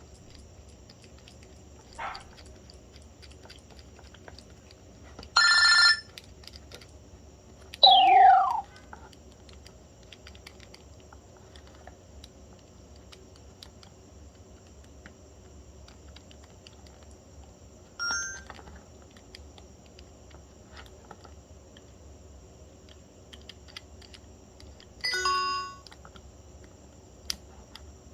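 BlackBerry Pearl 8120 alert tones played through the phone's speaker: five short electronic tones, each on its own with long pauses between. The loudest is a quick falling glide about eight seconds in.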